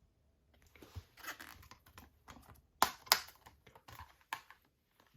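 Plastic Blu-ray case being handled: soft rustling and a series of small clicks, the sharpest two coming close together about three seconds in.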